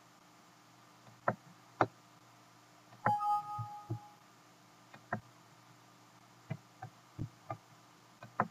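Sharp mouse clicks, two about a second in and several more scattered later, with a two-tone Windows warning chime a little past three seconds in that fades over about a second as a warning dialog pops up.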